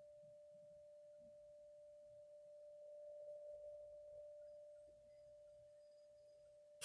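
Near silence: quiet room tone with a faint, steady whine held at one pitch.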